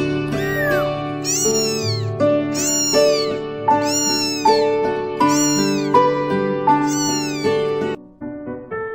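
A very young kitten mewing over and over, about nine high-pitched cries in a row, each rising then falling in pitch, with background music underneath. The cries stop about eight seconds in.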